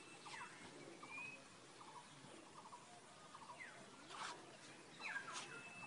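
Birds calling faintly, a short call repeated every second or two: a falling whistle followed by a few quick lower notes, with an occasional rising whistle between.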